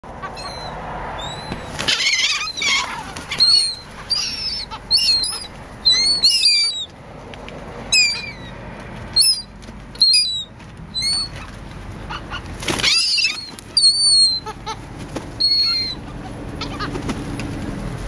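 A flock of gulls calling again and again in short, high, bending squeals, many overlapping, with wings flapping close by as they hover.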